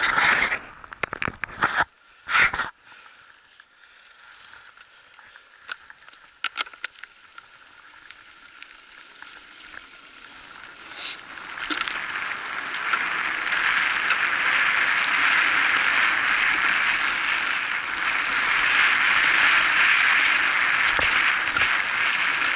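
Electric mountain bike riding a dirt forest trail. A few knocks and rustles at the start, then a steady rush of tyre and air noise that grows louder about halfway through as the bike picks up speed, to around 35 km/h.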